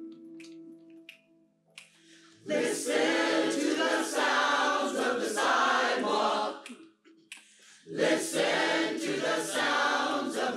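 A held piano chord dies away, then a choir sings two phrases with a short pause between them, sharp clicks marking the beat.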